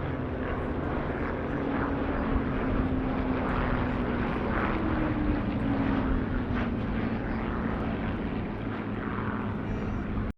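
Hawker Hurricane's Rolls-Royce Merlin V12 piston engine droning steadily as the fighter passes, its pitch dropping a little about halfway through.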